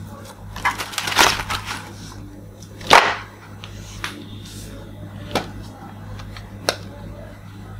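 Hard plastic toys being handled: rustling and scraping of plastic parts, loudest about three seconds in, then a few separate sharp plastic clicks and taps as a toy rifle is picked up. A steady low hum runs underneath.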